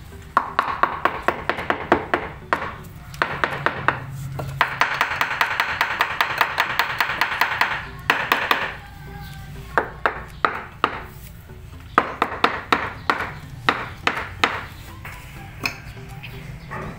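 A fist knocking on a ceramic riser tile to bed it into fresh mortar on a concrete stair step, in bursts of quick, sharp taps, thinning out toward the end.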